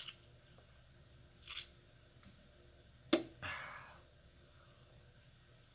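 A man spitting chewing-tobacco juice into a Mud Jug spit bottle: a few short spits, the loudest a sharp one about three seconds in, followed by a brief sputter.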